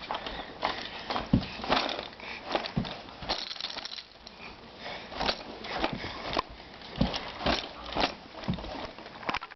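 Soft plastic baby wipes package being crinkled and handled: irregular bursts of short crackles with a brief lull about four seconds in.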